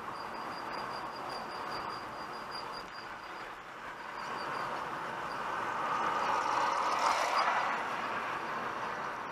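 A high, pulsing whistle from a car's rear left wheel brake while driving slowly, over steady tyre and road noise; the whistle stops about three and a half seconds in, and the road noise swells around six to seven seconds in. The driver takes the whistle, which goes away under braking, for a brake mechanism that needs lubricating.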